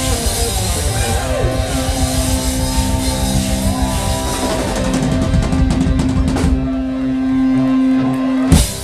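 Live rock band with electric guitar and drum kit closing out a song: a long held chord rings under drum fills and cymbal crashes, and the band stops together on one loud final hit near the end.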